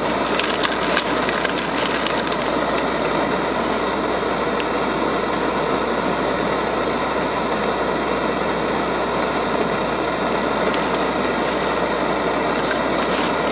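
Small butterfly-type propane camp stove burning with a steady, really loud roar. A few light crinkles of a plastic packet come in the first two seconds and again near the end.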